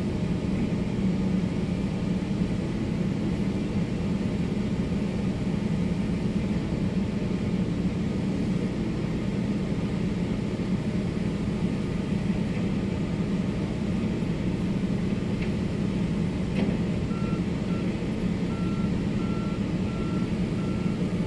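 Steady low drone of a heavy diesel excavator engine working under load. From about three-quarters of the way in, a reversing alarm beeps repeatedly.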